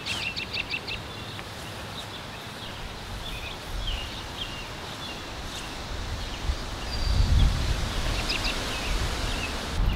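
Birds chirping, with wind rumbling on the microphone, loudest from about seven seconds in.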